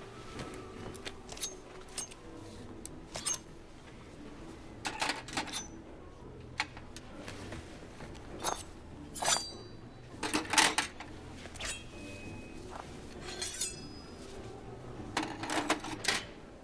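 Metal knives clinking and tapping against a silver tray, with a few glasses: a dozen or so sharp clinks with a short ring, spaced irregularly. The loudest cluster comes about ten seconds in.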